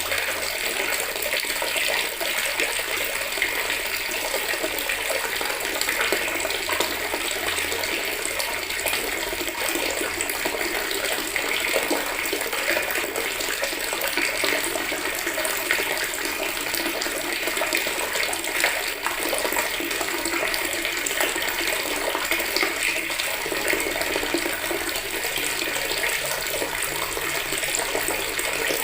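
Water running steadily from a tap into a plastic bucket, a continuous splashing hiss.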